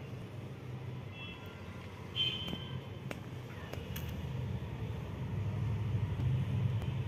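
Steady low rumble of a motor vehicle, growing a little louder over the last couple of seconds, with a few short high-pitched tones about a second and two seconds in.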